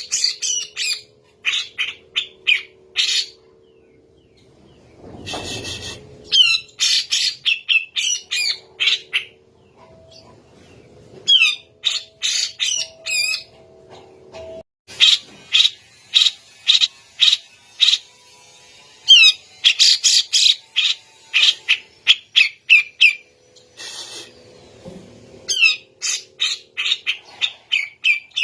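Grey-cheeked bulbul (cucak jenggot) singing in fast, harsh runs of sharp notes, several a second, in phrases of a few seconds broken by short pauses: the loud, continuous 'gacor' style used as a master song for training other songbirds.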